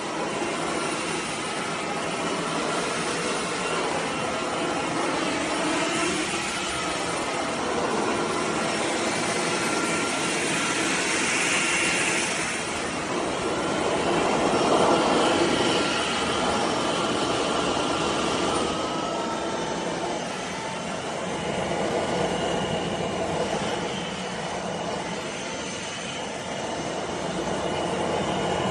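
Cordless stick vacuum running: a steady rush of air with a motor whine, its pitch and level shifting a little as it is worked.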